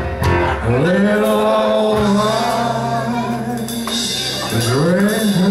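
Live band playing a country song, with a man singing long held notes that slide up into pitch: one about a second in, held for about three seconds, and another starting near the end.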